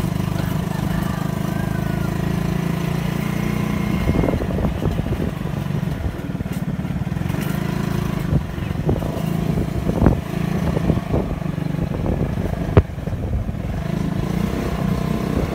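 Motorcycle engine running steadily while riding over a rough dirt road, with a few sharp knocks from the bumps, the loudest near the end.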